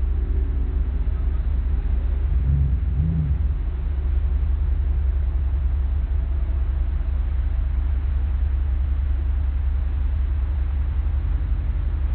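2001 Dodge Ram 2500's 5.9-litre Magnum V8 running, a steady low rumble.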